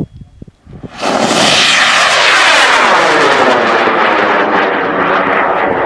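Rocket motor igniting about a second in and running with a loud, steady rushing roar as the rocket lifts off and climbs. The roar's tone sweeps downward and begins to fade at the very end.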